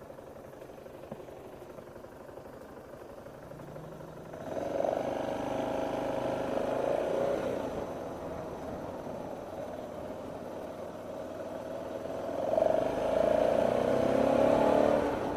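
A vehicle's engine runs quietly at first. About four seconds in it picks up and accelerates with a hum that climbs, then eases off. It accelerates harder again near the end, the pitch rising as it pulls away.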